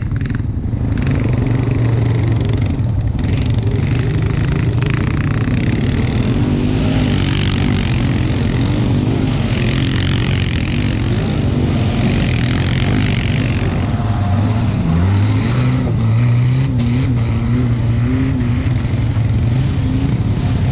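ATV engine running close by at steady throttle, with a hiss of wind and tyres over it. About fifteen seconds in the engine note drops briefly, then picks back up.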